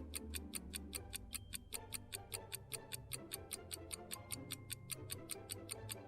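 Quiz countdown-timer sound effect: a rapid, even clock ticking, about five ticks a second, over faint background music, marking the time left to answer.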